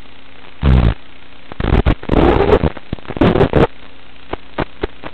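Steady hiss of an FPV quadcopter's analog video-link audio, broken by several loud crackling bursts of static in the first few seconds and a few sharp clicks near the end, the sound of the radio signal breaking up.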